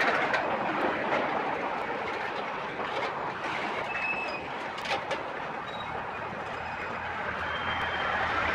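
Tank cars and covered hoppers of a freight train rolling slowly past at walking speed: a steady rolling rumble and rattle with scattered wheel clicks and a few brief, faint high wheel squeals.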